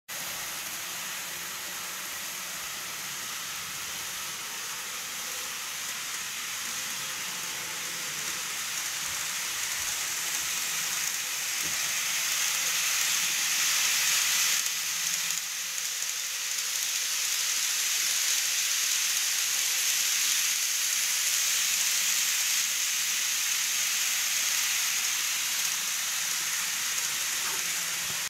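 GreenMax Tokyu 8500 series N-gauge model train running on viaduct track, a steady hissing rattle of its wheels and motor. It grows louder toward the middle, as the train passes close.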